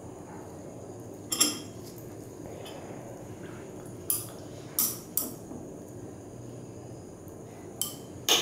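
Glass stirring rod clinking against the inside of a glass beaker as a liquid mixture is stirred: about six sharp clinks, spaced unevenly.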